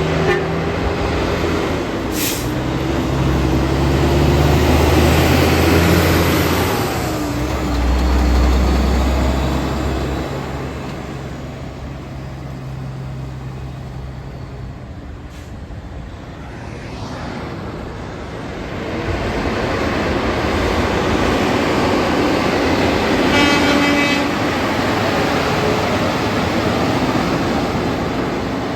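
Heavy trucks passing one after another, engines and tyre noise swelling up and fading away twice. A short, pitched horn blast sounds about three-quarters of the way through.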